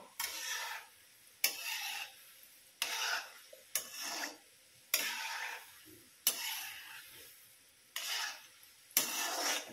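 Metal slotted spoon stirring gulab jamun balls around an iron kadhai of hot ghee: about eight swishing, scraping strokes roughly a second apart, each fading into a sizzle.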